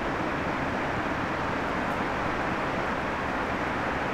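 A KiwiRail DC-class diesel-electric locomotive ploughing through deep snow. It makes a steady rushing noise that does not change, the engine running under the spray of snow thrown off the track.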